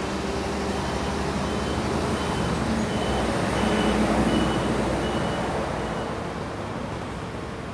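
A motor vehicle's engine noise grows louder, peaks about halfway through, then fades as it passes. A faint high beep repeats about every two-thirds of a second through the middle.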